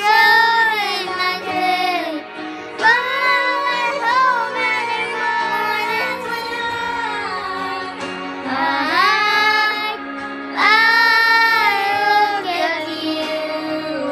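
Young girls singing a slow ballad, with long held notes, over steady instrumental accompaniment.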